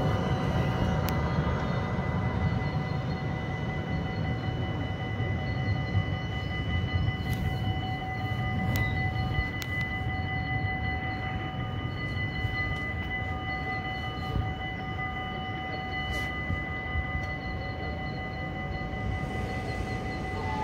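Electric tram moving off past the stop, its low rumble fading over the first couple of seconds, then a steady low rumble with a steady high whine underneath, and a few faint clicks.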